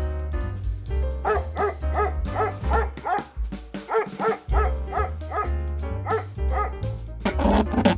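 A dog barking in a rapid run of short, high yaps, about three a second, over background music with a steady bass beat.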